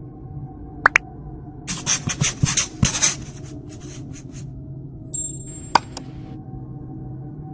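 Felt-tip marker scribbling on a whiteboard in a quick run of scratchy strokes from about two to four seconds in, over a soft steady music bed. A few sharp clicks come near the start and near the end, with a brief high tone just before the last one.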